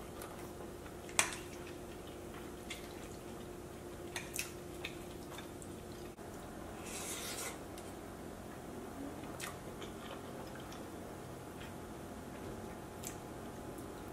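Faint eating sounds: a metal spoon scooping baked macaroni and cheese from a ceramic baking dish, giving a few sharp clicks (the loudest about a second in) and a short scrape, with soft chewing between.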